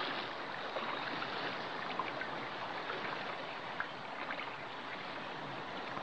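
Steady, gentle rush of shallow water, with faint trickles and drips through it.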